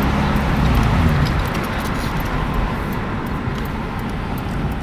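Car engine and road noise heard from inside the moving car. The engine's low hum eases off about a second in, with faint light clicks over the steady road noise.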